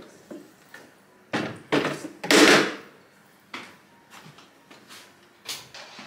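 Household handling sounds: several short knocks and clunks, then a louder rush of noise lasting under a second about two and a half seconds in.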